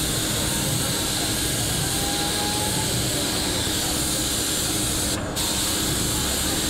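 Compressed-air gravity-feed paint spray gun hissing steadily as it atomises paint. The hiss cuts out briefly about five seconds in, then resumes.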